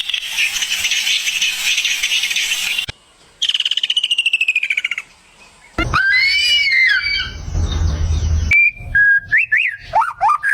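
A string of separate animal calls, cut one after another. First a hissing buzz for about three seconds, then a fast falling trill, then warbling chirps and short, sharply rising whistled notes like bird calls.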